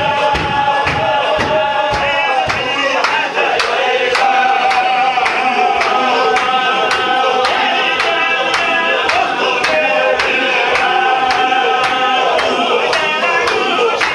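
Sufi zikr: a chorus of men chanting a religious song in unison with long held notes, over a sharp, steady beat about twice a second.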